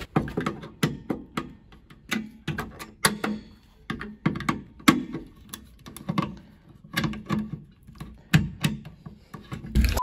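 A screwdriver working the reset screw of a Siemens fire alarm pull station: an irregular string of sharp clicks and knocks, several a second, as the tool turns and taps against the station's housing.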